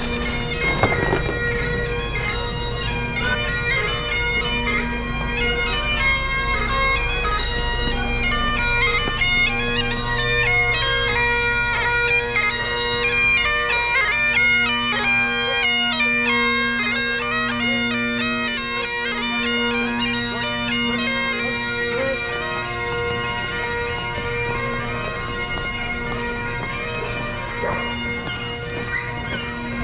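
A solo Great Highland bagpipe playing a march tune: the melody moves note to note over the steady drones. It grows louder toward the middle as the piper comes closer, then eases off a little.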